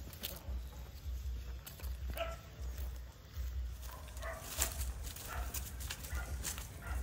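A few short, faint animal calls, like a dog yipping and whining, over an uneven, pulsing low rumble, with scattered clicks.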